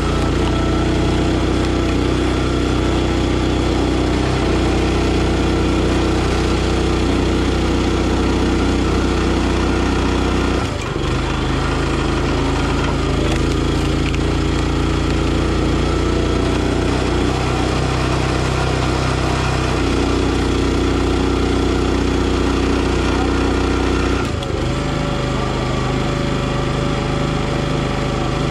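Gas engine of a NorthStar 37-ton log splitter running steadily, its note shifting several times as the hydraulic ram works through logs.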